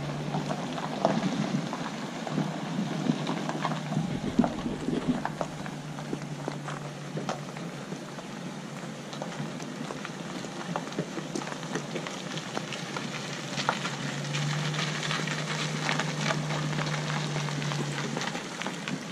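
Pickup truck towing a boat trailer across a gravel lot: tires crackling and popping on the gravel, with a low steady engine hum near the start and again in the last few seconds.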